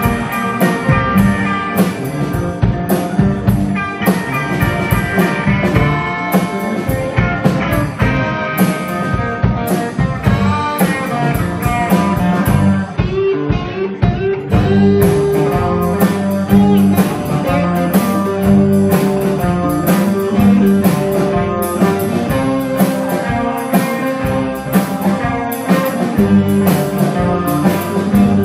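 Live blues band playing: electric guitars over bass and a drum kit, with steady cymbal strokes that drop out briefly about halfway through.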